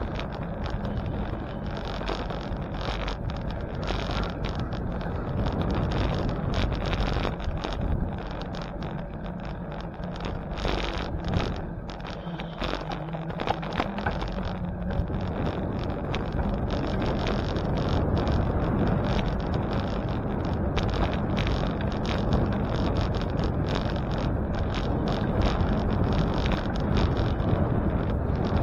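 Bicycle ride with wind rushing over the microphone and steady road noise, broken by frequent small rattles and knocks.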